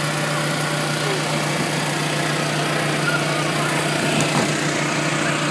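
Air blower of an inflatable climbing wall running with a steady drone.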